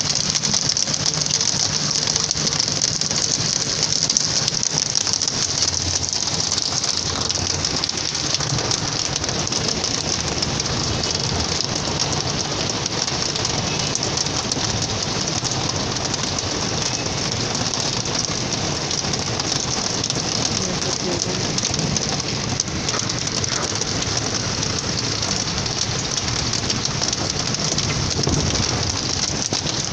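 Heavy rain falling steadily, an even dense hiss that does not let up.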